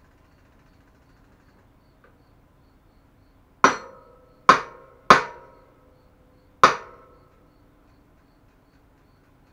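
Four hammer blows on metal, the middle two close together, each leaving a short metallic ring.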